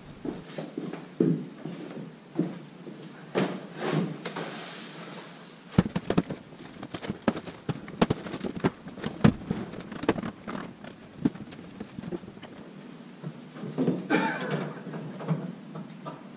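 Scattered knocks, bumps and clatter from materials being handled and set down, with footsteps; a busier run of quick knocks comes in the middle, and a short scrape near the end.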